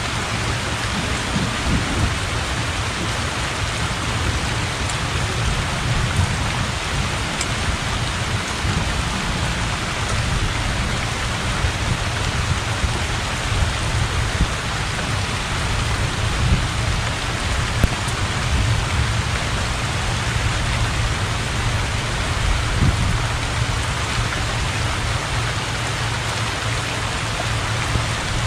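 Heavy rain falling steadily on a pond and a thatched roof, an even hiss with a continuous low rumble of distant thunder underneath that swells now and then.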